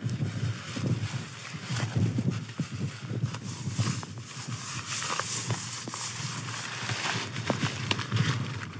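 Strong wind gusting over the microphone, a low buffeting rumble under a steady hiss. Through it come the rustles and short clicks of a rucksack and waterproof jacket being handled.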